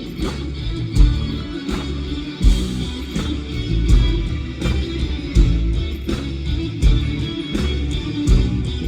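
Live rock band playing an instrumental passage: guitars over bass and a steady drum beat.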